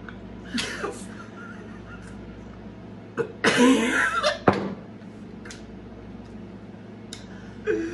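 Women laughing: a short laugh a little over half a second in, then a loud burst of laughter lasting about a second, starting around three and a half seconds in.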